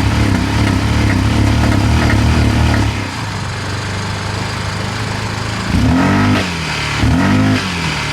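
Honda Pioneer 700's single-cylinder engine running at a fast idle, dropping to a lower idle about three seconds in, then revved in two short blips near the end.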